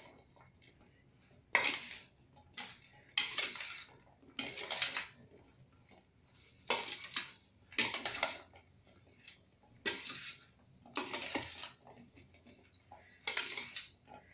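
Metal spoon scraping against a stainless steel bowl while tossing a chickpea and potato chaat, in about nine short strokes roughly every second or so, with quiet gaps between.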